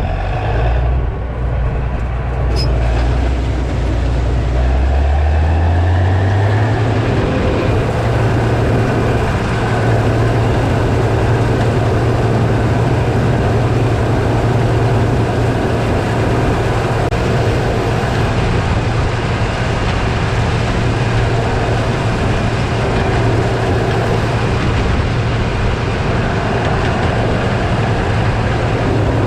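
John Deere 9660 STS combine engine running, heard as a steady low drone with machinery noise. About five seconds in, it rises in pitch and then holds steady at the higher speed.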